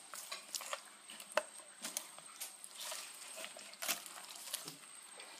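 A fillet knife cutting through a walleye's flesh along the backbone, with irregular small clicks and crunches as the blade passes over the bones.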